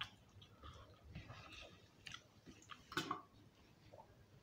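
Faint chewing and lip-smacking of people eating soft khichuri by hand, with scattered small clicks and one louder smack about three seconds in.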